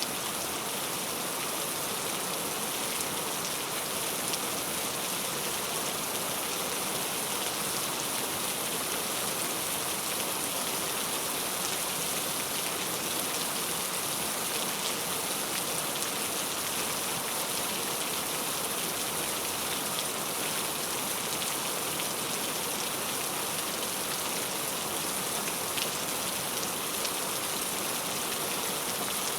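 Heavy rain falling steadily, a dense even hiss with scattered drop ticks and no change in intensity.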